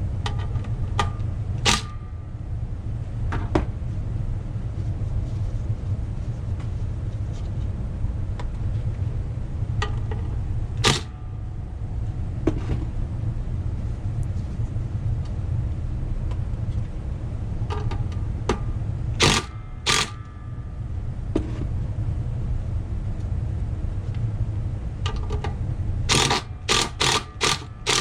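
Sharp metallic clicks and clinks of hand tools on the nuts and bolts of a brake backing plate assembly as they are worked loose, a few scattered and then a quick run of about six clicks near the end, over a steady low hum.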